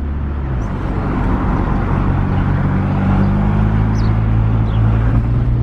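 Car engine and tyre noise heard from inside the cabin while driving: a steady low engine hum over road rumble.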